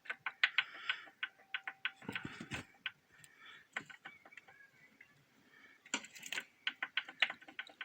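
Scattered light metallic clicks and ticks: a cluster at the start and another about six seconds in. They come from steel feeler gauge blades being handled and slid between a piston and the cylinder wall of a ZMZ-514 diesel with its head removed, measuring piston clearance while hunting for the cause of an engine knock.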